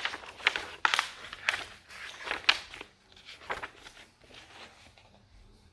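Paper pages of a picture book being handled and turned: a run of short crackling rustles that dies away about two-thirds of the way through.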